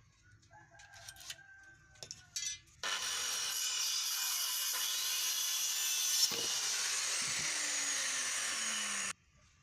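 Power saw cutting through wood: a loud, steady, hissing cut that starts abruptly about three seconds in and stops abruptly about six seconds later. Faint clicks come before it.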